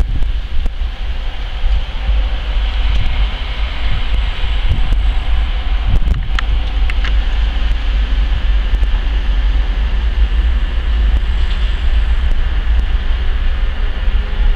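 Voith Maxima 40 CC diesel-hydraulic locomotive's big diesel engine running, a deep steady rumble with a high turbocharger whine over it. A few sharp clicks come about six seconds in.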